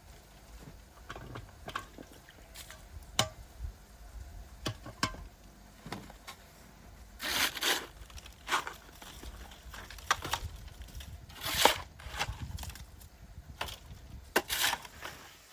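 Scattered light taps and clicks, with three short, louder scrapes about seven, eleven and a half and fourteen and a half seconds in.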